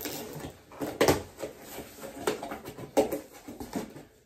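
A knife slitting the packing tape on a cardboard box, and the flaps being pulled open. It comes as a run of sharp cardboard scrapes and tearing cracks.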